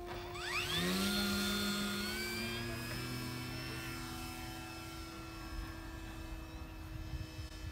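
Electric motor and propeller of a Durafly Tundra RC plane throttling up for takeoff: the whine rises sharply about half a second in and again around two seconds, then holds steady and slowly fades as the plane climbs away.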